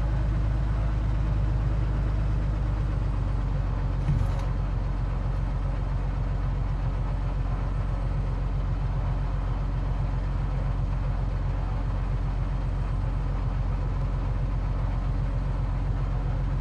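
Cessna 182Q's six-cylinder piston engine and propeller droning steadily in flight, heard from inside the cabin, with a brief click about four seconds in.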